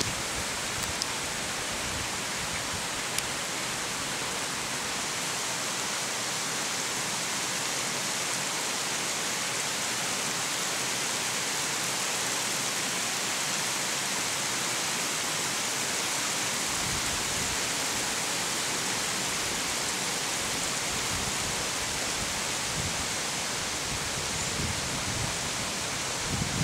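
Small stream running over stones, a steady rushing hiss of water.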